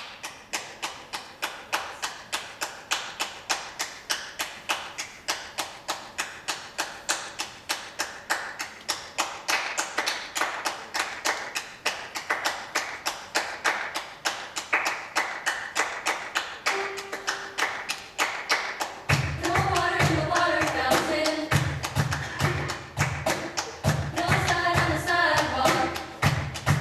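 Choir keeping a steady beat with hand percussion, about four claps a second. About two-thirds of the way through, low stomps join on the beat and the choir starts singing over the rhythm.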